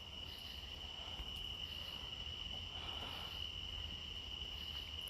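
A faint, steady high-pitched tone that holds one pitch throughout, with a low hum underneath.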